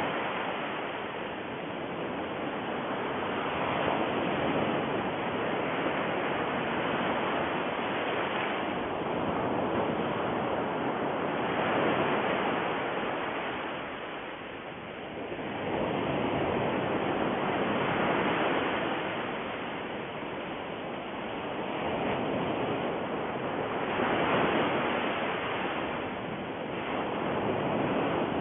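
A steady rushing noise, like surf, slowly swelling and ebbing every four to six seconds.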